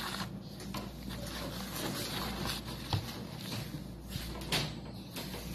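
Light clicks and scrapes as small turtles and a hand move in a plastic tub, with sharper knocks about three seconds in and again near four and a half seconds.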